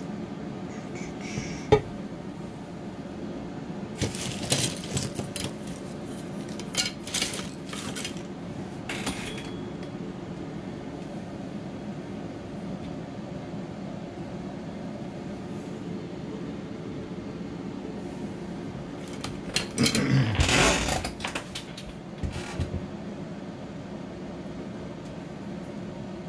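Handling noise at a sculpting bench: scattered small clicks and clatters of tools and the metal armature stand, with a louder rustle about twenty seconds in, over a steady low hum.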